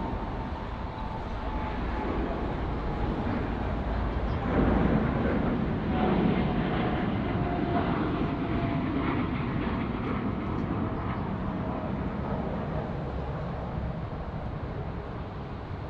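Jet airliner engines running as a large plane passes, a broad noise with a faint whine that swells about four seconds in and slowly fades.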